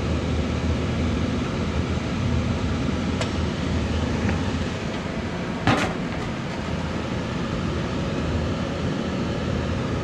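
Ruud furnace's blower motor running steadily on high speed, a low hum under a steady rushing noise. A light click about three seconds in and a sharp clack of the clamp meter against the sheet-metal cabinet near the middle.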